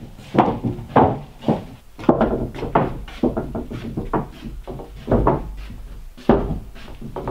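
Footsteps on loose wooden planks laid across floor joists, with wooden knocks as OSB subfloor sheets are carried and handled. The knocks come irregularly, about two a second.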